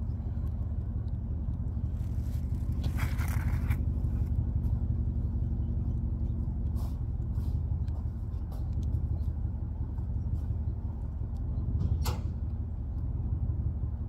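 Truck engine idling steadily, with a brief hiss about three seconds in and a sharp click near the end.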